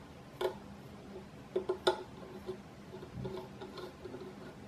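Small magnetic-tip screwdriver turning the tiny retaining screw that holds an M.2 NVMe SSD onto a PCIe adapter card. It gives a few light metal clicks, a cluster just before two seconds in, then fainter ticks.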